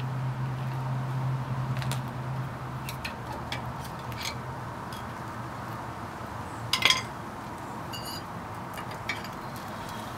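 Irregular metallic clinks and clicks of a wrench and bolt hardware working at a Jeep Wrangler shock absorber's lower mount, the loudest clink about seven seconds in.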